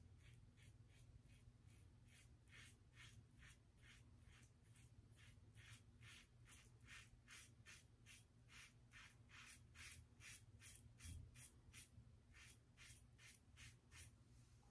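Brass Yates Merica double-edge safety razor scraping through lathered stubble on a first pass, in quiet short strokes about two a second.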